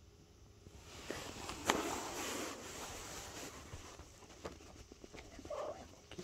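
Rustling and scuffing noise with scattered clicks, starting about a second in, with one sharp click soon after, then slowly dying down.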